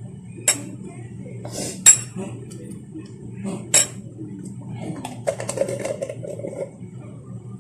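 Spoon clinking against a dish while fermented anchovy paste is served out: a handful of sharp clinks, the loudest three spread across the first four seconds.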